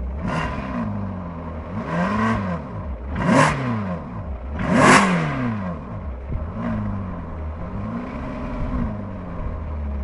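Ferrari California's 4.3-litre V8 idling and blipped about six times through its exhaust, each rev rising and falling in pitch. The revs about three and five seconds in are the loudest, and the last two are softer.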